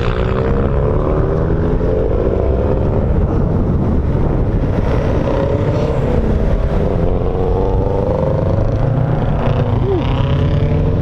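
Flat-four engines and exhausts of Subaru WRX and STI cars driving past one after another at low speed. A steady low engine drone whose pitch rises and falls as each car goes by.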